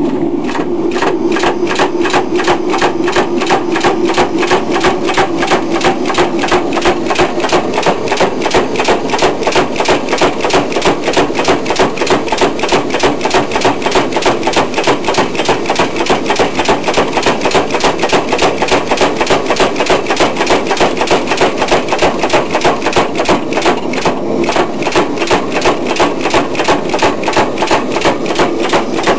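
Power hammer striking hot damascus steel in rapid, even blows, about four to five a second, over a steady motor hum. The blows pause briefly about 24 seconds in.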